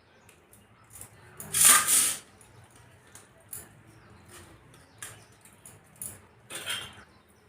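A person eating rice and fish curry by hand: small mouth clicks and smacks of chewing, with two louder noisy bursts of eating noise, one about a second and a half in and one near the end.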